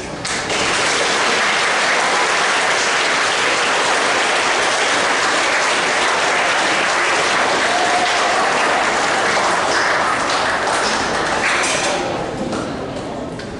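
Audience of students and staff applauding, a steady dense clapping that dies down near the end.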